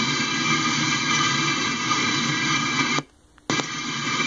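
The last tank cars of a freight train rolling past a grade crossing, heard through a hissy, noisy recording. The sound drops out completely for about half a second, about three seconds in, then comes back.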